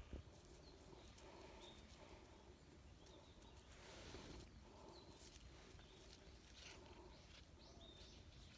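Near silence, with a few faint, short bird chirps scattered through it and light rustling.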